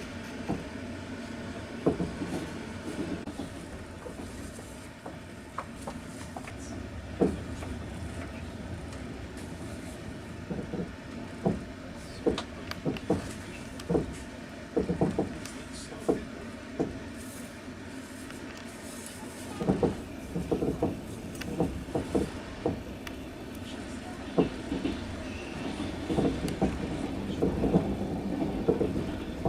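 Passenger train running, heard from inside the carriage: a steady rumble with sharp, irregular knocks and clacks of the wheels over the rail joints, coming in quicker runs in the second half.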